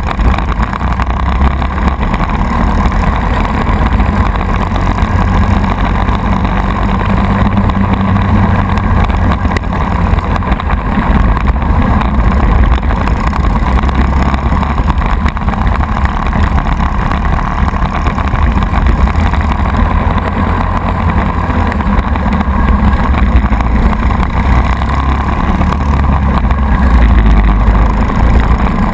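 Briggs & Stratton Animal four-stroke kart engine running steadily under racing load, heard from on board the kart.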